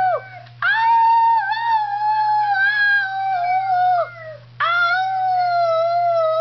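A Schnauzer howling: two long, wavering howls of about three seconds each, each sliding down in pitch as it dies away, after the end of an earlier howl dropping off at the very start.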